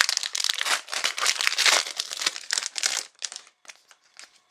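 Trading card pack wrapper crinkling as it is handled, a busy crackle for about three seconds that then dies down to a few light clicks.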